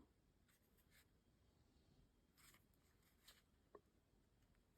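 Near silence, with a few faint light ticks and rustles from thin laser-cut wooden ornament pieces being handled and aligned.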